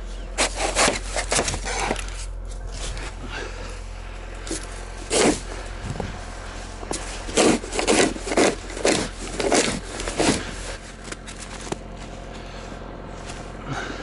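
Snow shovel scraping and cutting into deep, packed snow in a series of strokes: a cluster about half a second to two seconds in, one about five seconds in, and a quick run from about seven to ten seconds. A steady low hum runs underneath.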